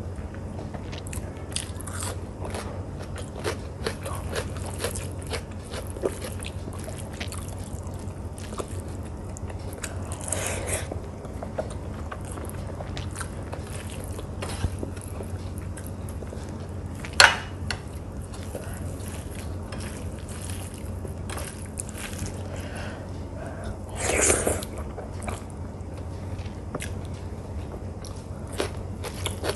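Close-miked chewing and mouth sounds of a person eating, with many small wet clicks and smacks. There is one sharp click about 17 seconds in, and a louder, longer noise around 24 seconds.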